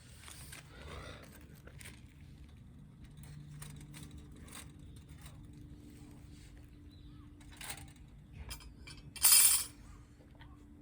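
Light metallic clinks and knocks from camping gear being handled, with one short, loud rasp about nine seconds in.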